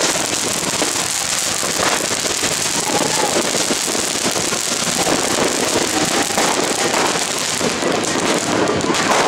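Ground fountain fireworks spraying sparks, giving a steady hiss and crackle.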